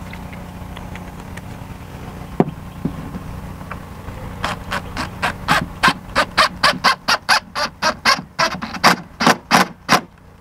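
Cordless DeWalt impact driver driving a screw up through the support foot into the bottom rail of a vinyl Trex railing. It comes in a rapid run of short bursts starting about four and a half seconds in, over a steady low hum.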